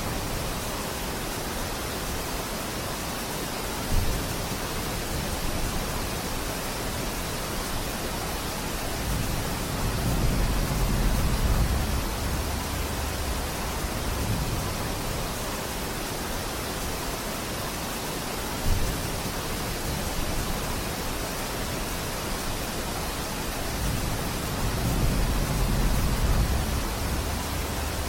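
Steady rain falling on forest foliage, an even hiss, with two low rumbling swells, about ten and twenty-five seconds in, and two short thumps, about four and nineteen seconds in.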